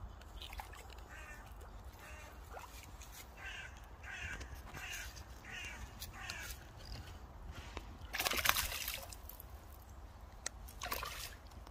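A crow cawing in a run of about seven harsh calls, roughly half a second apart. About eight seconds in comes a loud burst of noise, and a shorter one near the end.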